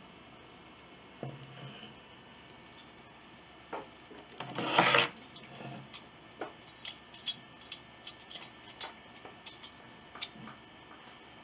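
A broken-off piece of wood being rubbed and pressed back into place against a wooden board by hand: a short scraping rub about five seconds in, then a run of light wooden clicks and taps, about two a second.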